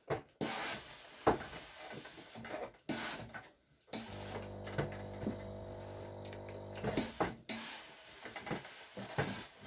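Ironing with a steam generator iron: knocks of the iron and rustling of clothes on a wooden table, and a steady buzzing hum lasting about three seconds in the middle, which starts and stops abruptly, from the steam station's pump as steam is fed to the iron.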